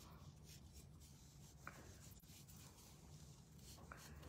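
Near silence: the faint scratching of a paintbrush rubbing paint onto a sculpted surface, with a couple of small ticks, over a faint low hum.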